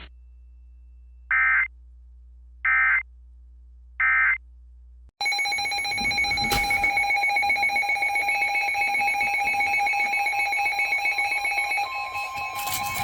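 EAS end-of-message signal: three short bursts of harsh digital data tones, about a second and a half apart. About five seconds in, a loud, dense mix of several steady electronic alert tones starts abruptly, and another steady tone joins near the end.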